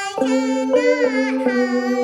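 A child singing a slow melody over held notes on an electronic keyboard set to a bell voice. The keyboard notes change every half second or so.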